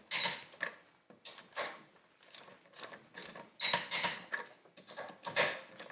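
Click-type torque wrench set to 80 foot-pounds pulled hard and fast on a wheel fastener, giving a series of short, sharp metallic clicks and clacks. The aggressive pulls overshoot the setting, reaching 98 and 109 foot-pounds.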